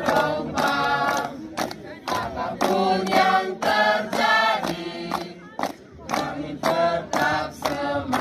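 A group of young voices singing together in unison in short rhythmic phrases, with sharp hand claps between the phrases.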